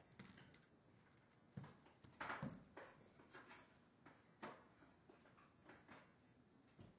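Faint, scattered knocks and clatters, about half a dozen, the loudest a short rough scrape about two seconds in.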